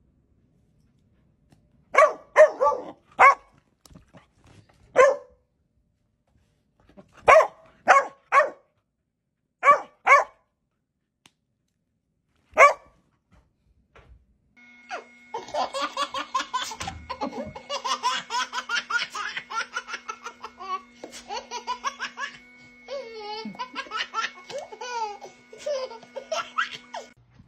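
Puppy barking in short bursts, about eleven barks in clusters over the first thirteen seconds. From about halfway through, a baby laughs and squeals continuously over a steady hum.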